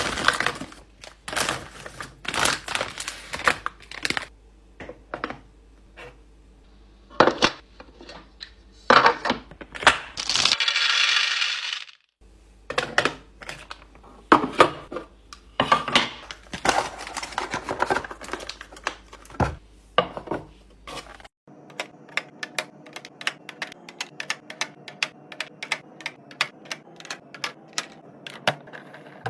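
Items being handled and set down while restocking a fridge: a series of clicks and clatters of packaged goods and containers, with a brief rustle of packaging about ten seconds in. In the last third this turns to a quick, even run of light clicks, about four a second, as small items are dropped or set in place one after another.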